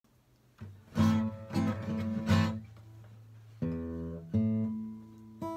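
Steel-string acoustic guitar strumming chords: a few loud strums in the first two seconds or so, then softer chords left to ring and fade.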